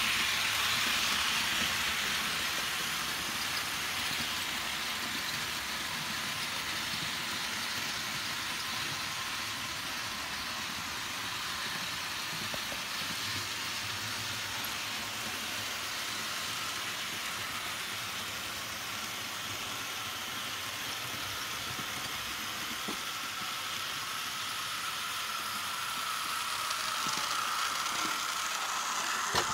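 HO-scale Märklin V188 diesel model locomotive running with its long train of cars, making a steady rolling rush of wheels on model track with motor hum. It gets louder near the end as the locomotive comes close, with a thin whine rising over it.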